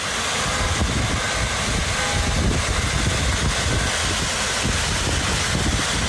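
Strong storm wind buffeting the microphone: a loud, steady rumble with a rushing hiss over it.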